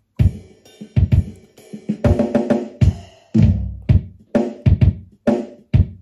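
Boss Dr. Rhythm DR-3 drum machine playing a programmed drum pattern: kick, snare and hi-hat hits in a repeating groove.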